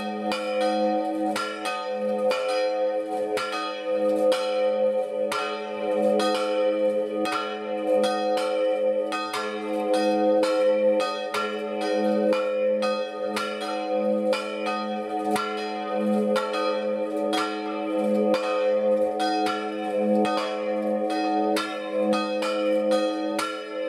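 Two Marinelli-cast church bells swung full circle (a 'distesa'), their strokes overlapping in a steady, uneven stream of two to three a second over a sustained ringing hum. One of the two has a large crack that spoils its tone.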